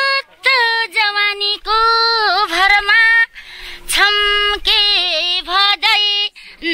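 A woman's high voice singing a Nepali folk song in long, wavering phrases with short breaks between them.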